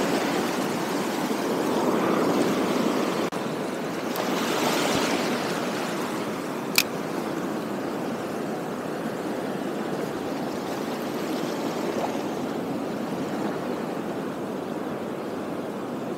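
Sea waves washing over and swirling among shore rocks, swelling twice in the first five seconds, then a steadier wash. There is a single sharp click about seven seconds in.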